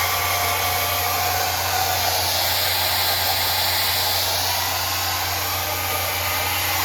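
Handheld hair blow dryer running steadily, blowing on a wig's glued lace to dry and set the glue.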